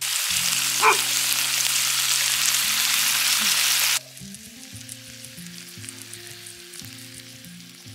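Steaks and broccolini sizzling loudly in a cast iron skillet over a campfire, cutting off suddenly about four seconds in. Soft background music runs underneath and carries on alone afterwards.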